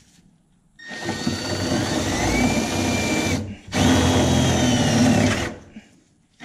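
Power drill with a 5/16-inch bit running under load as it bores through the brace's mounting holes in the car's underside. It makes two runs, the first about two and a half seconds long and the second about two, each with a steady whine.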